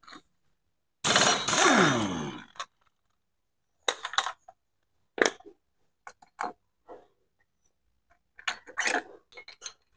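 A power impact wrench runs for about a second and a half, starting about a second in, as it spins off the scooter's front CVT pulley nut, its pitch falling as it winds down. Short metallic clinks follow as the pulley parts are handled and lifted off, several close together near the end.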